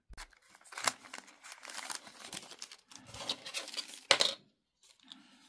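Small clicks, scrapes and rustles of a plastic replacement lens being handled and worked into a sunglasses frame, with the loudest sharp click about four seconds in.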